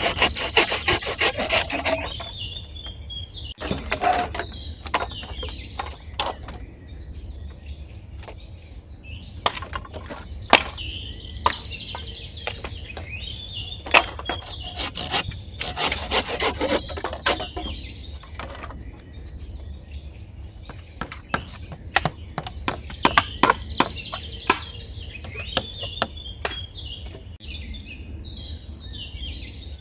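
Wood being knocked and scraped in irregular knocks, with quick runs of strikes near the start and about halfway through. Birds chirp faintly throughout over a low, steady wind rumble.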